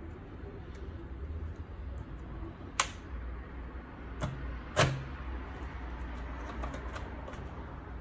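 Sharp plastic clicks as a plastic card is slid along the seam of a Lenovo Legion Y540 laptop's bottom panel, popping its clips loose: two loud snaps about three and five seconds in, with a softer one between, then a run of lighter ticks.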